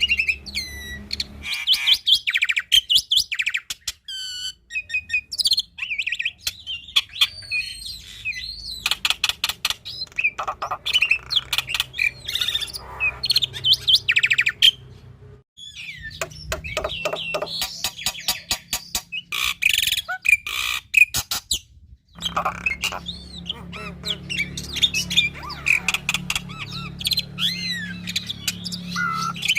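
Black-winged starling (jalak putih) singing at full tilt: a busy run of clear whistles, pitch glides, rapid clicking trills and harsh chatter, packed with mimicked phrases of other birds. The song has short breaks about halfway through and again a little later.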